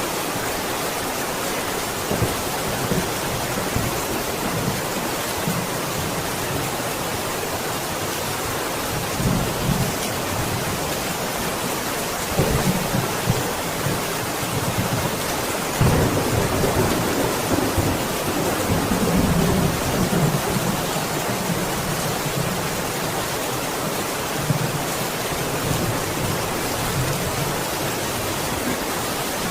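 Steady rain falling, with thunder rumbling low several times, the longest and loudest roll in the middle.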